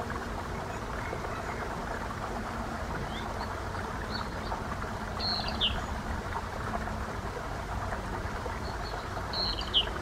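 Nature-sound bed of steady running water, with a bird giving short chirps several times, clusters a few seconds apart, the loudest near the end.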